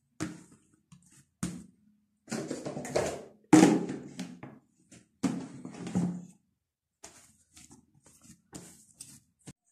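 A plastic mixing bowl lifted off and set down with thuds and rustles, then hands pressing and kneading soft risen yeast dough on a silicone mat in soft pats, pressing the air out after its first rise.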